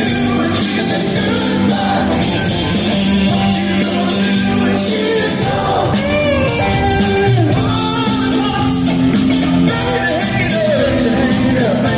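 Live soft-rock band playing a song at full volume, with a sung or lead melody line bending over the steady chords.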